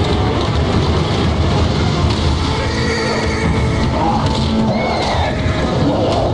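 An animal calling several times over music and a dense, steady low rumble.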